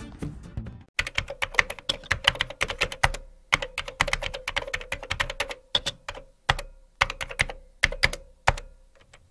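Typing sound effect: rapid, irregular keyboard key clicks, timed to on-screen text being typed out, with a brief pause partway through.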